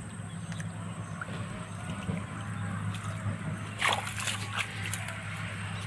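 Pond water sloshing and dripping as a wet fishing net is hauled up out of shallow water by hand, with a short run of louder splashes about four seconds in.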